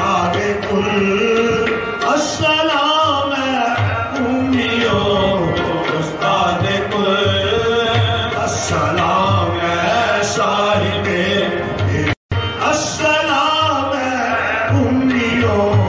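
Music: singing over a steady drum beat. The sound drops out for an instant about three-quarters of the way through.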